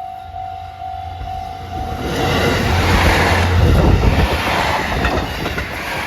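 Level-crossing warning bell ringing about twice a second, then a diesel train passes over the crossing. Its rumble and wheel noise swell from about two seconds in, loudest around the middle, and drown out the bell, with wheel clicks over the rail joints near the end.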